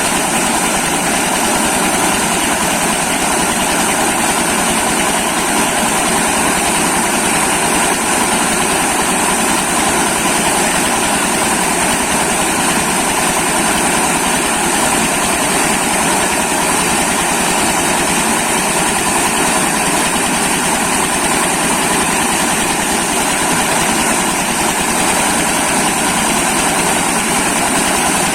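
Engine-driven corn milling machine running steadily and loudly, with no change in speed.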